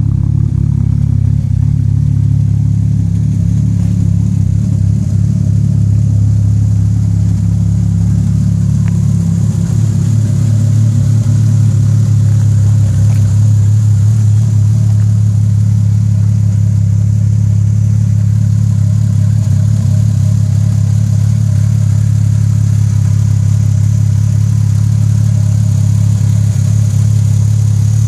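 Toyota Supra MK4 twin-turbo straight-six engine idling steadily, with no revving.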